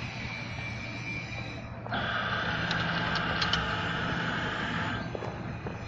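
Electric hoist motor running with a steady whine from about two seconds in until about five seconds in, over a constant low machine hum, with a few light metallic clicks in the middle.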